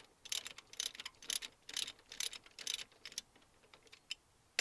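Socket ratchet clicking in quick runs, about two strokes a second, as a 13 mm bolt on the coil-pack bracket is loosened off; it stops about three seconds in. A sharp metal clink rings out right at the end.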